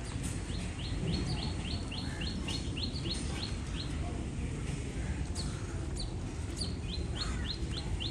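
A bird calling runs of short, quick rising chirps, about four a second: one run early on, and another starting near the end, over steady low background noise.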